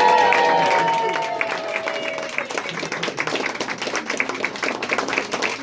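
A group of people clapping and applauding. Several voices hold long cheering calls over the clapping, and these die away about two seconds in.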